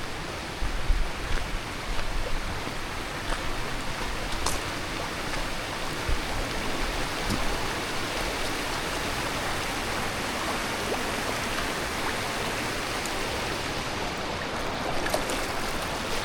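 Rain-swollen creek water flowing steadily over a rocky bed, with a few low thuds in the first few seconds.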